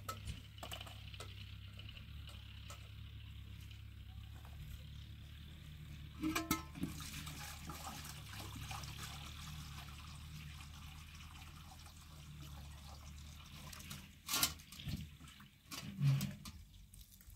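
Steady sound of water, with a few sharp knocks or clatters about six seconds in and again near the end.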